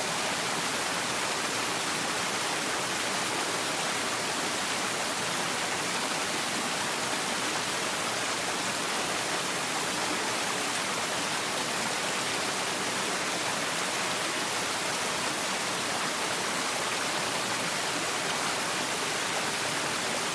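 A small garden stream running and splashing over rocks in a low cascade: a steady rush of water that stays even throughout.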